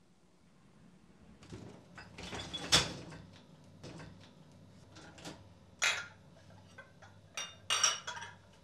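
Dishes being unloaded from a dishwasher: the wire rack rattling and cups and plates knocking and clinking as they are lifted out. This begins about a second and a half in as a series of separate clatters, the sharpest near the middle and toward the end.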